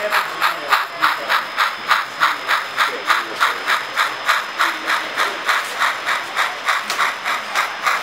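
Model steam locomotive's chuffing sound effect: a steady, even rhythm of about four hissing chuffs a second as the engine runs.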